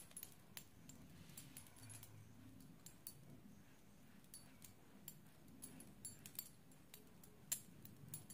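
Near silence: faint room tone with scattered soft, irregular clicks as foundation is dabbed onto the face with a makeup sponge.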